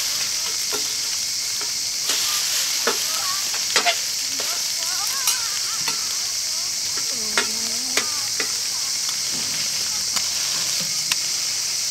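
Noodles and vegetables sizzling steadily on a hot steel griddle plate, with metal spatulas scraping and clicking against the plate several times as the pancakes are slid under and flipped.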